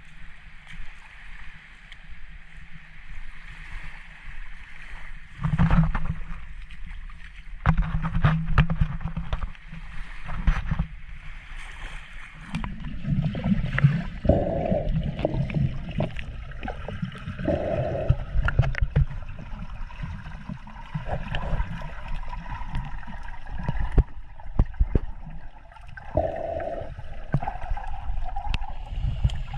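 Seawater sloshing and gurgling around the microphone, with irregular knocks and bumps.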